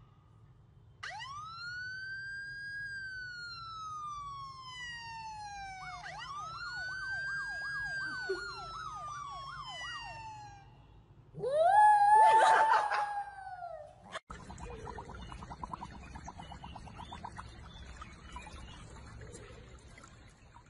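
A police siren sound played through a phone's speaker, first a long rising and falling wail, then a fast yelp, followed by a small white dog's loud howl answering it. After a sudden break comes a quieter, noisier stretch.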